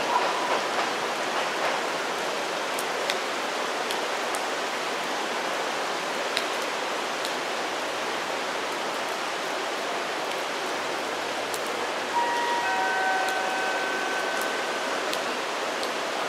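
Steady hiss of rain falling on the station platforms and tracks, with a few faint ticks of drops. About twelve seconds in, a faint high squeal of several steady tones sounds for a few seconds.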